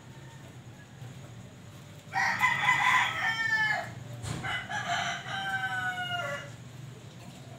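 A rooster crowing twice, each crow about two seconds long and ending on a falling note, the first starting about two seconds in.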